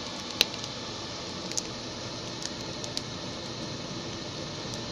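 Steady rushing hiss of a dried coconut-husk fire with a small electric fan blowing air into it, with a few sharp crackles from the burning husk.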